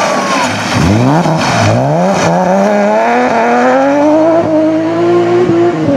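BMW M3 E36 rally car's straight-six engine passing at speed. Its note dips sharply about a second in, then climbs in one long rising pull as the car accelerates away, with a brief break near the end.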